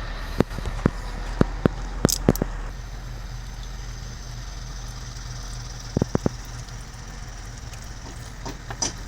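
Truck repair workshop sounds: a steady low hum under short, sharp knocks of tools on parts, about seven in the first two and a half seconds, a quick run of three about six seconds in, and one more near the end.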